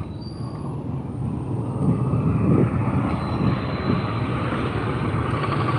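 Motorcycle tricycle's engine running steadily, growing louder about a second in.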